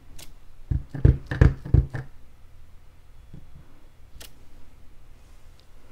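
A clear acrylic stamp block pressed down onto cardstock on a stamping mat: four quick dull thumps just under a second in, with a couple of light clicks later.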